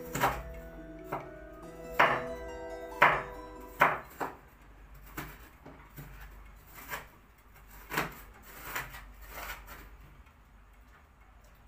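Kitchen knife dicing an onion on a plastic cutting board, sharp strikes coming unevenly about once a second. Background music plays underneath and fades out about halfway through.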